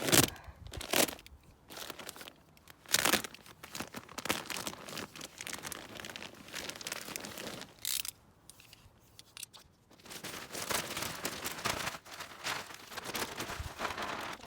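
Crinkly wrapping being handled: irregular rustling and crinkling, with sharp, loud crackles near the start and about three seconds in, and steadier rustling in the last few seconds.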